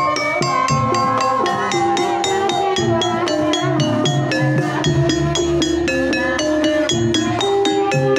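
Gamelan playing a Banyumasan tayub gending: an even, quick run of struck metal or bamboo notes that ring on, over the beats of a kendang hand drum.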